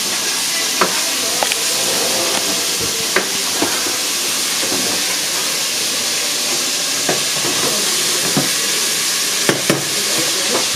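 Steady hiss of food cooking in pots on a stovetop, with a spoon clinking against the pots now and then, two sharp clinks close together near the end.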